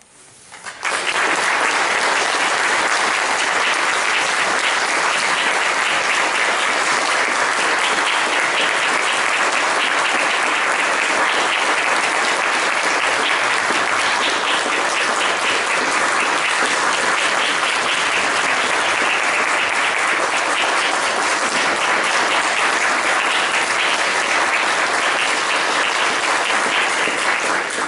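Audience applauding steadily after a choir's performance. The clapping starts about a second in and dies away near the end.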